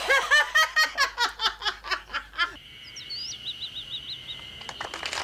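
A woman laughing hard in a quick run of 'ha-ha-ha' for about two and a half seconds. Then, more quietly, birds chirping, one giving a short call repeated about five times.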